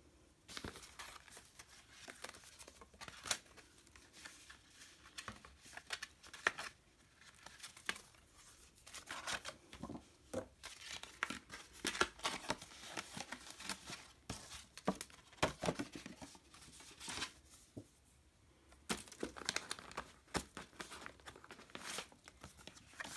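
White tissue paper rustling and crinkling as it is handled and unfolded by hand, in irregular bursts with a short lull about three quarters of the way through.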